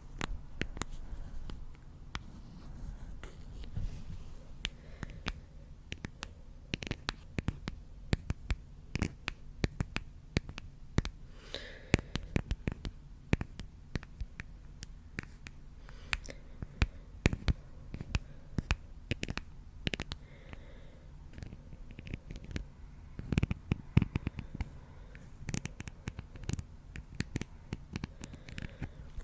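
Close-miked ASMR scratching and tapping on a microphone: irregular sharp clicks and scrapes over a low rumble of handling noise.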